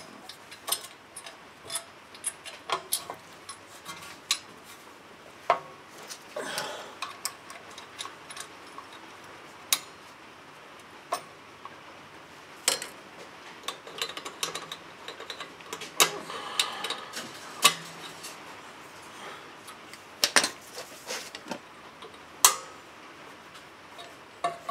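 Irregular sharp metallic clicks and clinks from parking brake shoe hardware being handled and fitted: hold-down pins, springs and shoes on the brake backing plate. A few louder clinks come near the end.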